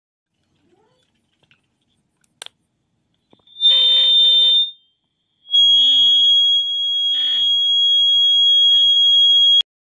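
Pocket AM/FM radio's speaker squealing with audio feedback as it picks up a nearby FM transmitter board whose microphone hears the radio. After a sharp click a little over two seconds in, there is a short loud squeal, a brief gap, then a steady high whistle for about four seconds that cuts off suddenly.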